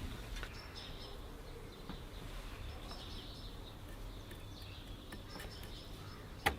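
Quiet background with faint, scattered high chirps and one sharp click near the end.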